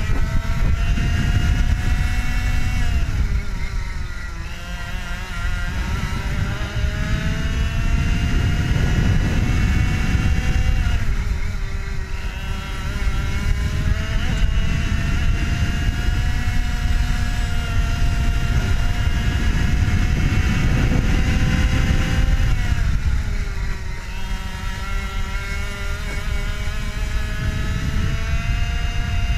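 IAME two-stroke kart engine at racing speed, its pitch climbing slowly along the straights and dropping sharply three times as the driver lifts for corners: a few seconds in, about eleven seconds in and about two-thirds through. Wind rushes over the onboard camera's microphone beneath the engine.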